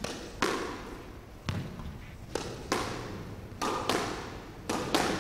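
Squash ball struck back and forth in a warm-up: sharp knocks of racket on ball and ball on the court walls, each ringing on in the enclosed court, about nine of them, several in quick pairs.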